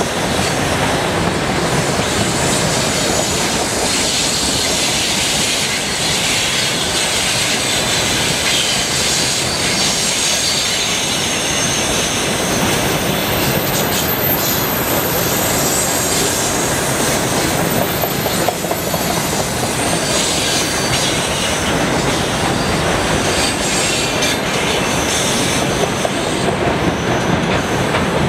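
A long freight train of railway tank cars rolling past close by: a steady rumble and clatter of steel wheels on the rails.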